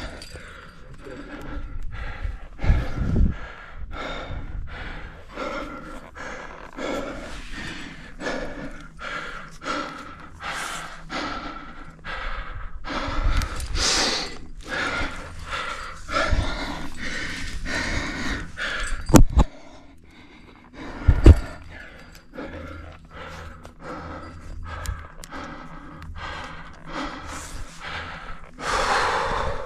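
A rock climber breathing hard and fast while climbing, the breaths close to a GoPro, with two sharp knocks about two seconds apart around two-thirds of the way through.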